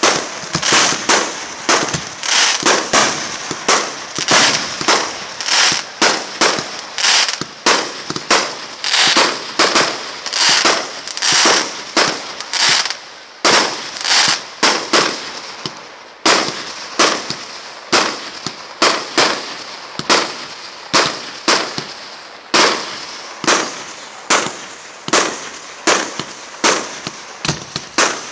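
Aerial fireworks display: a dense run of sharp bangs from shells launching and bursting, about one to two a second, with a brief lull about halfway through.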